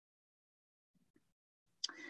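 Near silence in a pause between spoken sentences, with a faint click and a brief soft hiss near the end.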